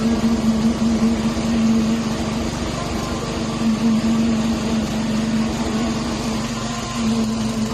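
A small engine running steadily at a constant speed, a steady pitched drone with a fast low pulsing underneath.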